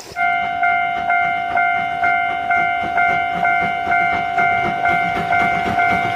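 Steam locomotive running with its whistle held in one long, steady note, over a regular chuffing of about two beats a second.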